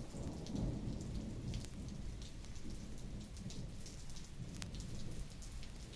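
Steady rain falling, with a low rumble of thunder underneath and many small clicks, from an old recording played back off a vinyl LP.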